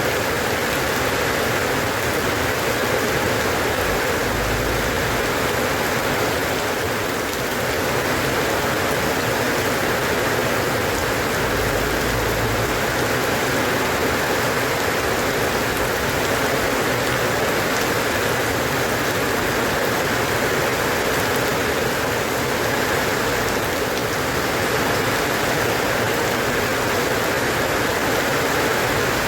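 Steady, even rain falling, a continuous hiss of drops with no pauses. A short low rumble comes twice.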